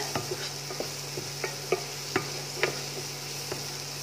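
Wooden spatula stirring chopped amla (Indian gooseberry) in hot sesame oil in a nonstick kadai, with irregular taps and scrapes a few times a second over a faint sizzle. A steady low hum runs under it.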